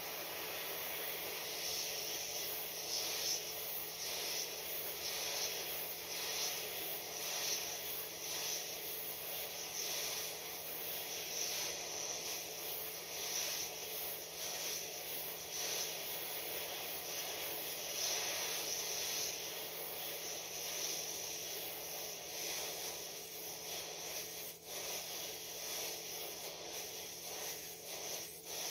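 Hot air rework station blowing a steady hiss of hot air at 350 °C on high airflow onto a phone motherboard, heating the solder to lift off an LCD connector.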